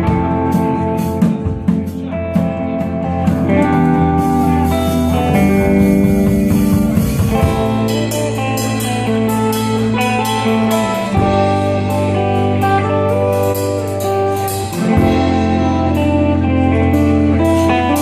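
Live rock band playing an instrumental passage: two electric guitars, one playing long held notes, over a drum kit with cymbals.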